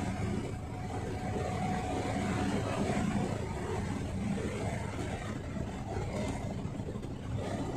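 Steady engine and road noise of a moving bus on a wet road, heard from inside the passenger cabin.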